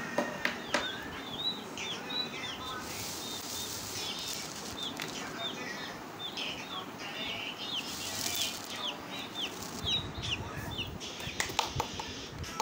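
Young chicks peeping over and over, short high calls that slide down in pitch, several a second. Two brief rushes of wing flapping come about three and eight seconds in, and near the end there is a run of sharp taps.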